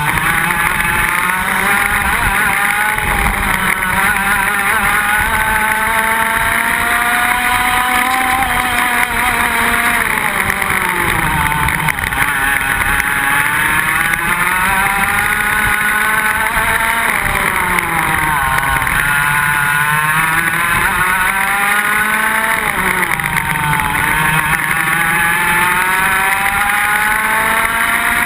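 Iame X30 125cc two-stroke kart engines at racing speed, heard from onboard. The revs climb steadily along the straights and fall away as the karts brake into corners, with deep dips about halfway through and twice more later.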